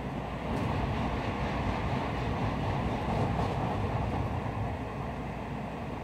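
Shinkansen train running at speed, heard from inside the passenger cabin: a steady rumble and rush of running noise, a little louder from about half a second in and easing slightly near the end.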